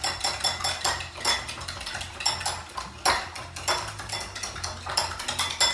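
Raw eggs being beaten with a metal spoon in a glass bowl: rapid, repeated clinks of the spoon against the glass, with the slosh of the beaten egg.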